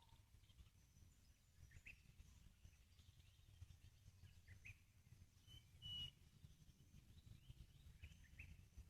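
Faint, scattered bird chirps: a few short single notes, the clearest about six seconds in, over a low rumble.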